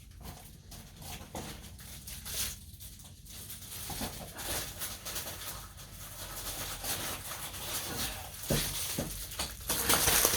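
Packaging being handled and rustled: scattered soft rustles and small clicks, swelling into a louder crinkle near the end.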